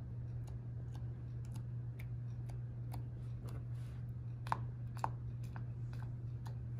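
Tip of a three-colour marker pressed again and again onto slime, a string of light, sticky little taps and clicks, two of them louder about two-thirds of the way through, over a steady low hum.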